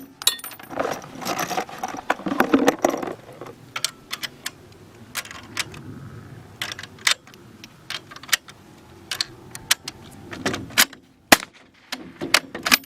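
Suppressed gunshots fired in quick, irregular succession, some sharp and loud, others fainter, with a short stretch of muffled noise about a second in.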